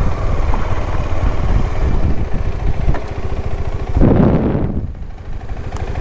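KTM 250 Adventure's single-cylinder engine running at low speed while riding over rough dirt ground, with a louder surge about four seconds in.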